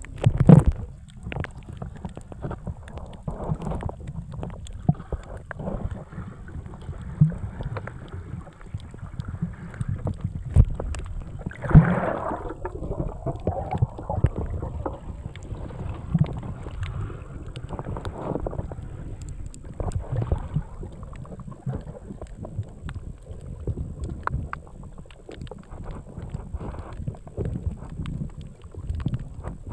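Underwater ambience picked up by a submerged camera: a muffled, uneven low rumble of moving water with scattered clicks and knocks, and a brief louder rush about twelve seconds in.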